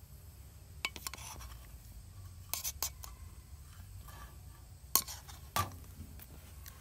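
A measuring spoon and a spatula clinking and knocking against a glass mixing bowl as baking soda is spooned into cake batter and stirred in: a few sharp knocks, the loudest about five seconds in, over a low steady rumble.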